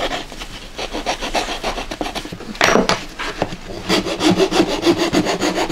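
A metal file rasping back and forth over a carved kimekomi doll body of pressed paulownia sawdust, in quick repeated strokes of about four a second, with one louder scrape near the middle.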